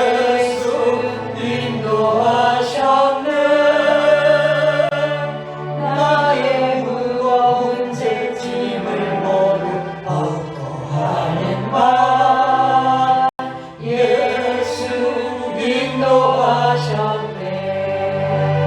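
Choir singing a gospel hymn, with sustained low notes beneath the voices; the sound cuts out for an instant about two-thirds of the way through.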